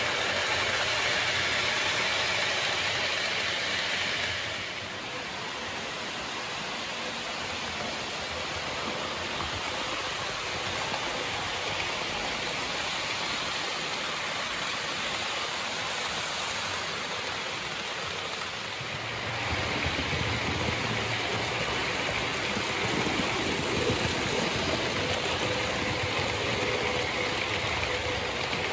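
HO-scale model trains running on a layout: a steady rumble of wheels rolling on the track. It gets quieter about four seconds in and louder again about two-thirds of the way through.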